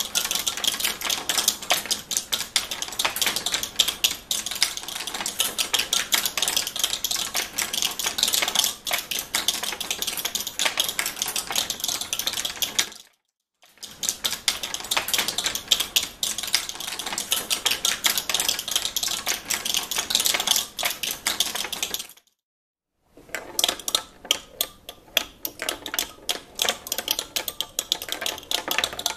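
Steel balls clattering down an inclined wooden pegboard, striking rows of metal screws in a dense, rapid rattle of clicks. The rattle stops abruptly twice, about 13 and 22 seconds in, and the last stretch is a little quieter.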